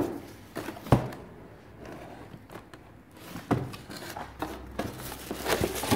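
Cardboard laptop box and its packaging being handled as the laptop is pulled out: rustling with a few sharp knocks, about a second in, about halfway through and a cluster near the end.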